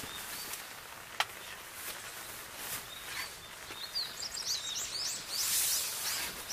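Birds chirping outdoors, a quick run of short sweeping calls that gets busy in the second half, over a steady hiss of outdoor background noise. A single sharp click sounds about a second in.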